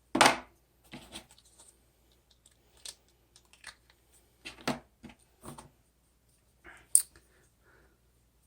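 Small accessories and packaging being handled: scattered clicks and knocks, with a loud knock just after the start and a sharp click about seven seconds in.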